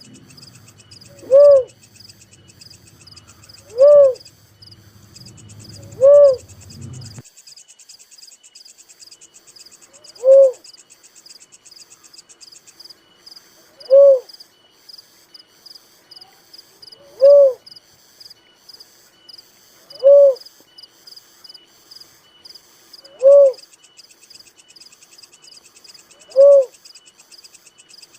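A wild dove calling single short hooting coos, about one every three seconds, nine in all, over steady high insect chirring.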